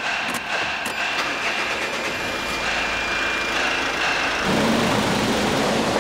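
Kia Sorento's 2.5 D4CB common-rail diesel being started: the starter cranks with a steady whine, and about four and a half seconds in the engine catches and runs, with air still trapped in the fuel filter.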